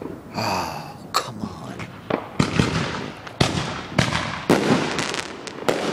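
Fireworks going off overhead: a quick, irregular series of about ten sharp bangs and cracks, each with a short echoing tail.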